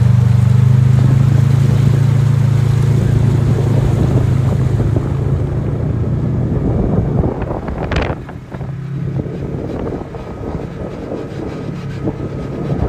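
Side-by-side off-road vehicle engine running steadily, then fading out over the first seven or so seconds; a short sharp sound about eight seconds in, followed by a low rushing noise.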